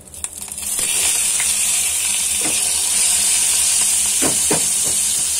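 Grated onion sizzling as it drops into hot mustard oil in a frying pan. The steady hiss swells within the first second and then holds. A few knocks and scrapes of a steel slotted skimmer stirring against the pan come halfway through and near the end.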